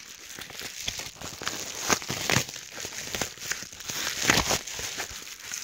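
Packaging crinkling and rustling as a package is handled and opened by hand, in irregular crackles with louder bursts about two and four seconds in.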